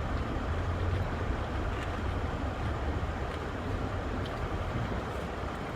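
Steady low rumble of a running vehicle, heard from inside it.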